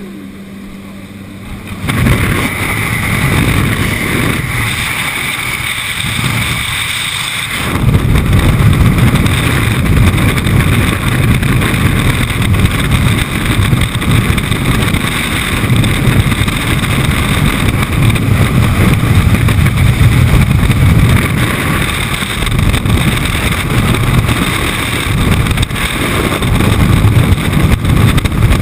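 Aircraft engine drone heard at the open jump door, then, from about two seconds in, loud wind rushing over the microphone of a camera worn by a skydiver in freefall. The rush grows louder about eight seconds in and stays heavy and low.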